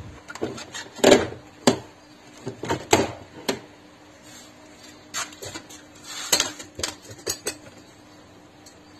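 Plastic door trim panel of a Seat Leon being pressed onto the door by hand, giving a series of sharp plastic clicks and knocks as its clips snap into place, the loudest about a second in.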